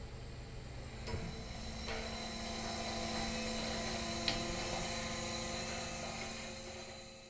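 Steady machinery hum with a high whine from a work ship's engines and deck machinery, with a few light clicks and a sharp tick about four seconds in. It fades out at the end.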